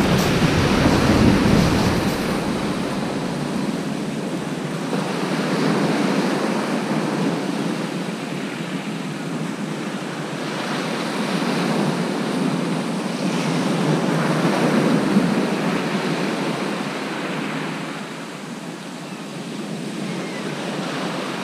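Sea surf breaking on a shingle beach, the wash swelling and ebbing every few seconds. Wind buffets the microphone with a low rumble in the first couple of seconds.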